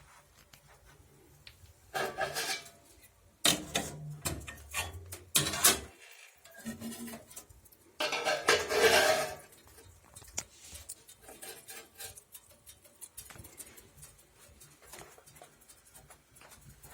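Metal pots and utensils clattering and scraping in three bursts, about two, four and nine seconds in, the last the loudest, with light clicks and knocks in between and after.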